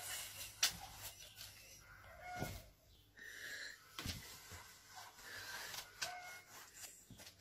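Cat making a series of short chirping calls, with bumps and rustles of movement in between.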